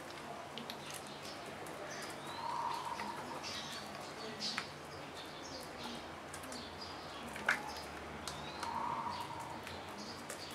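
Birds chirping in the background, with soft taps and rustles of a resin brush and gloved hand working wet fiberglass cloth onto a mould. The sharpest tap comes about three-quarters of the way through.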